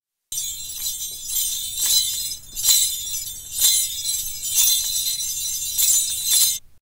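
High, bright jingling with a louder shake roughly once a second; it starts and cuts off abruptly.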